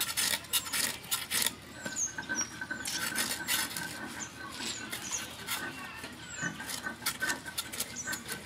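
Irregular scraping and clinking of metal kitchen tools during fish preparation, with short high chirps scattered through it.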